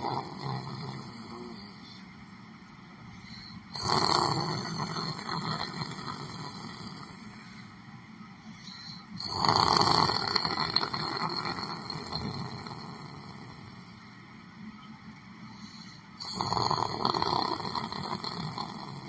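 A person snoring while asleep: three loud snores, one every five to seven seconds, each starting suddenly and fading slowly.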